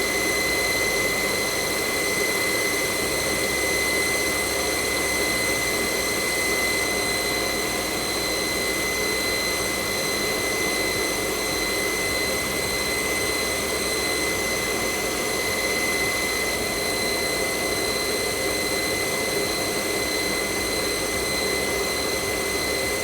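Weinig U22N six-head moulder running with its cutterhead spindles spinning free: a steady high whine over a broad mechanical hum.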